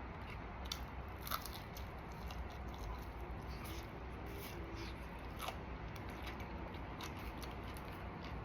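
A person biting and chewing fried chicken, with scattered small clicks and crackles from the mouth and the battered skin.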